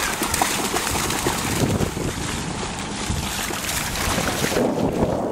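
A dog splashing as it runs through shallow sea water, under steady wind noise on the microphone. The hiss drops away near the end.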